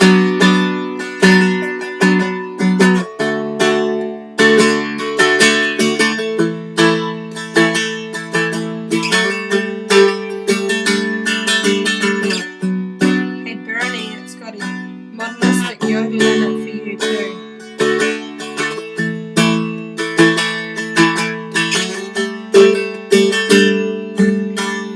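A Seagull Merlin, a four-string dulcimer-style instrument in D tuning, strummed in a steady rhythm with low strings ringing under the strokes. It plays the instrumental intro to a song, changing chords a few times.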